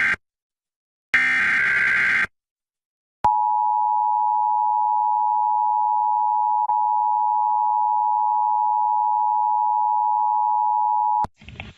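Emergency Alert System broadcast tones: the end of one SAME digital header and then another, each a blast of data tones about a second long. After a short pause comes the EAS attention signal, two steady tones (853 and 960 Hz) sounding together for about eight seconds before cutting off near the end.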